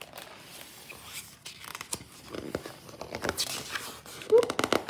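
Paper rustling and crinkling with scattered small clicks as the pages of a picture book are handled and turned, with a brief voice sound near the end.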